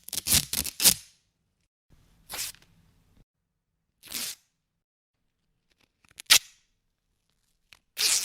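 Adhesive tape being ripped off the roll in short tears: a quick run of rips in the first second, then single rips about every two seconds, the one about six seconds in a short, sharp snap.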